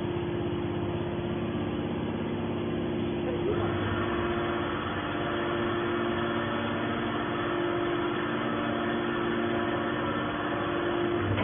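Hydraulic can baler running, its pump motor humming steadily. About three and a half seconds in, a higher hiss joins the hum.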